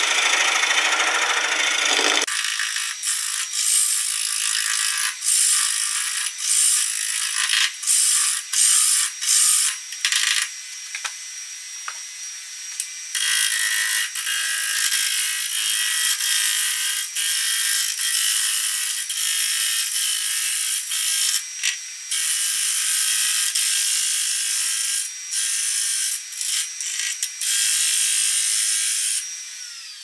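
Turning tool roughing a spinning disc of dense hardwood on a wood lathe: a hissing, rasping cut broken by many brief gaps as the tool leaves the uneven wood. About two seconds in, the sound suddenly turns thinner and brighter and stays that way.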